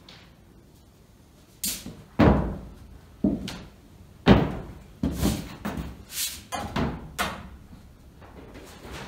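Sheet-metal stovepipe knocking and clanking as sections are handled and pushed together. A quiet start gives way to sharp bangs, the loudest about two and four seconds in, followed by a string of shorter metallic knocks and scrapes.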